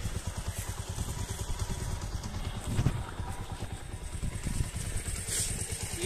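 Small motorcycle engine idling with a steady, fast low putter. A single knock comes about three seconds in.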